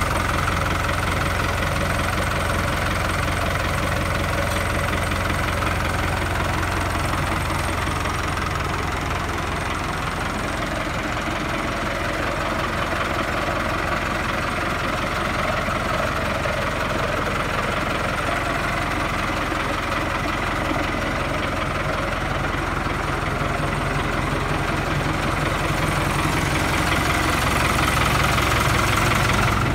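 Fiat Fiatagri 80-90 DT tractor's four-cylinder diesel engine idling steadily.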